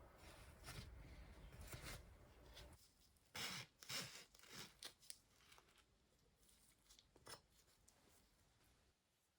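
Faint food-preparation handling sounds: a few short rustling, tearing-like strokes about three to four seconds in, then scattered light clicks.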